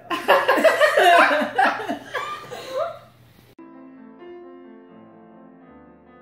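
Women laughing loudly for about three and a half seconds, cut off suddenly, followed by soft piano music.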